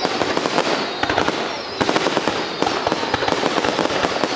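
Aerial fireworks bursting overhead in quick succession, a dense, unbroken crackle of pops and bangs.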